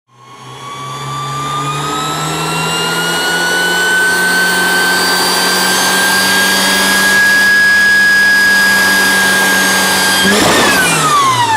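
Volkswagen Corrado engine running hard under acceleration, a high whine climbing slowly in pitch and then holding steady. About ten seconds in, the pitch drops steeply as the engine comes off load.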